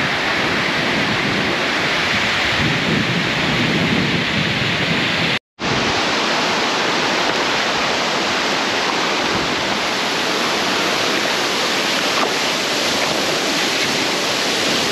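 Waterfall and shallow rocky stream rushing: a steady, loud, even noise of falling and running water. It cuts out for an instant about five and a half seconds in.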